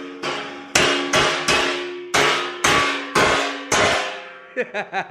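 Claw hammer striking a short steel pipe tack-welded to a steel plate, about seven blows roughly two a second, each leaving the plate ringing: a strength test of fresh tack welds. Really loud.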